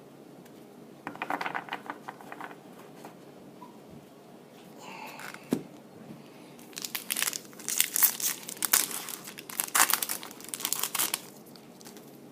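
Trading-card pack wrapper crinkling and being torn open by hand: a short crackle about a second in, then a longer run of crinkling and tearing from about seven to eleven seconds.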